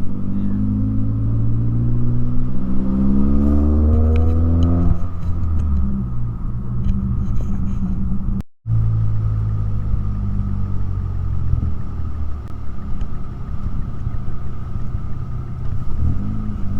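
2009 Mazda3's 2.3-litre four-cylinder, straight-piped from a racing header through a high-flow cat, accelerating with its note rising for the first few seconds, then droning at a steady speed. The sound cuts out for a moment about halfway through.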